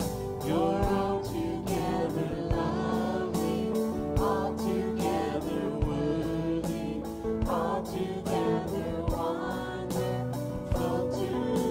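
Live worship band playing a gospel song: several voices singing together over electric guitar, bass guitar and a drum kit keeping a steady beat.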